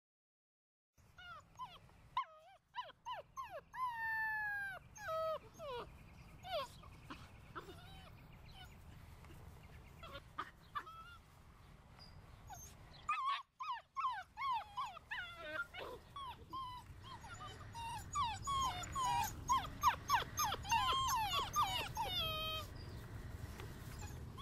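Seven-week-old German Shorthaired Pointer puppies whining and whimpering: many short, high cries that slide down in pitch. The cries start about a second in and come thicker near the end.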